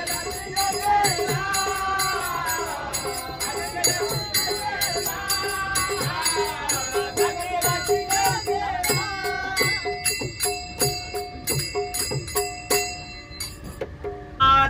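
Devotional abhang sung by a group of commuters: a long, drawn-out sung line with small hand cymbals (taal) clinking in a fast steady beat over a low pulse. The voices drop out about nine seconds in, leaving the cymbals and held tones. The cymbals stop just before the end.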